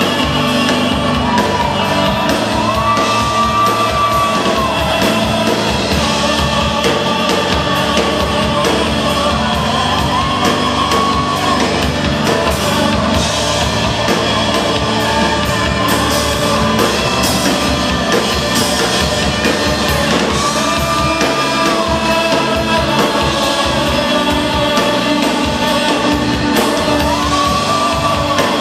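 Live worship music: a man sings long held notes that glide up and down over steady instrumental accompaniment.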